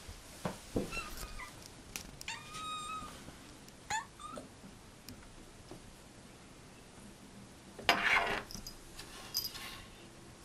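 An 11-month-old kitten making a series of short chirps and small meows, one held briefly on a steady note and one rising quickly, with a louder, noisy sound about eight seconds in.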